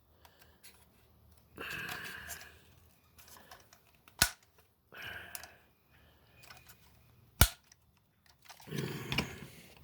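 A plastic Masters of the Universe Origins Stridor action figure being handled and posed: plastic scuffing and rustling, with two sharp clicks, about four seconds in and again about seven and a half seconds in.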